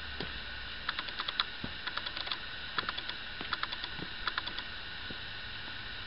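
Bushwalk ambience: a steady high hum, with several bursts of quick, sharp clicks between about one and four and a half seconds in, and a few soft footfalls on the rocky track.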